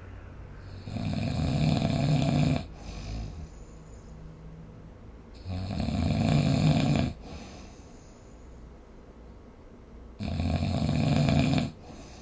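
Snoring: three loud snores about four and a half seconds apart, each lasting one and a half to two seconds, with a softer breath after the first.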